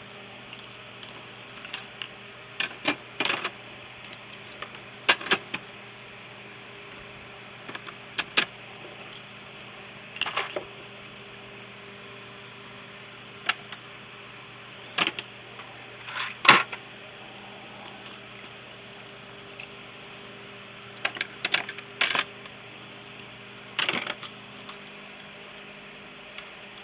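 Small metal hand tools such as screwdrivers clinking and clattering as they are handled and set into a toolbox, in scattered bursts of a few knocks each, over a faint steady hum.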